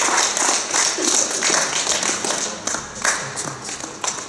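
Audience applauding, the clapping thinning out and dying down toward the end.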